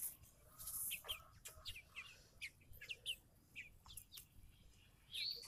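A flock of six-week-old Red Ranger broiler chickens peeping: a string of short, high, falling chirps at uneven intervals, with one longer rising-and-falling call near the end.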